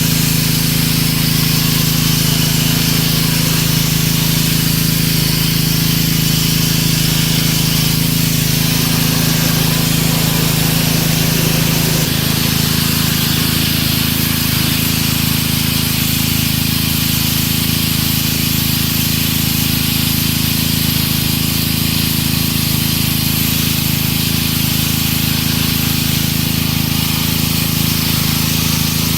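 Pressure washer running steadily: a low motor hum under the hiss of the water spray. The motor's tone shifts about twelve seconds in.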